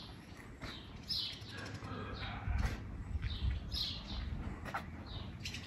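Small birds chirping: short high chirps repeated every half second to a second, over a low rumble.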